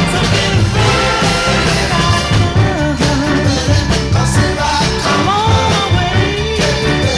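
Background music: an upbeat song with a steady beat and a gliding melody line.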